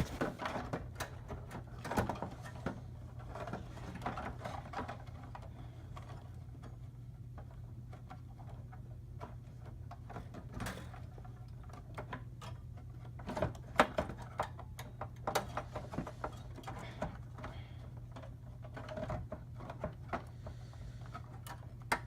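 Clicks, taps and knocks of a desktop graphics card being pulled from its PCIe slot and handled against the computer case, in scattered clusters, over a steady low hum.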